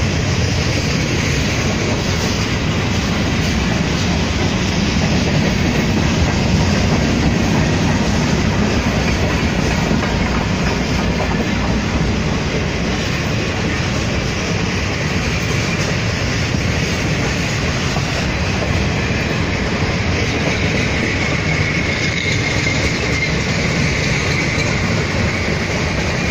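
Freight cars (boxcars and covered hoppers) rolling steadily past, steel wheels clattering over the rails. A faint high wheel squeal comes in about three quarters of the way through.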